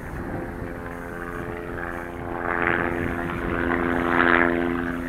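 Steady humming drone of an aircraft, with two louder rushing swells, about halfway through and near the end.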